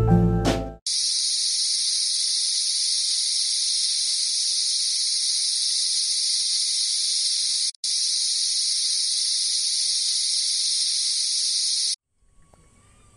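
Dense chorus of summer cicadas, a continuous high-pitched sizzle with a split-second break partway through, cutting off abruptly near the end.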